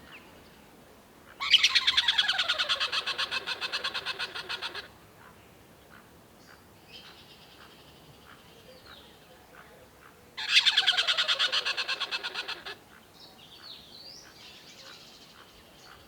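Tree squirrel giving its rattling chatter call: two bouts of rapid, evenly spaced harsh notes, each a few seconds long, loudest at the start and fading away. Fainter bird-like chirps between the bouts.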